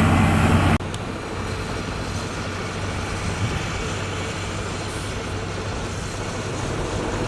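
Diesel engine of heavy road-building machinery running. It is loud for the first second, then drops suddenly to a quieter steady running sound.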